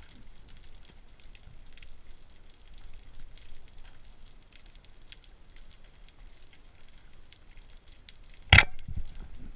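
Underwater, a rubber-band speargun (arbalete) fires near the end: one sudden, sharp, loud snap with a short ringing tail, followed by a few low thuds. Beneath it runs a faint, steady crackle of tiny underwater clicks.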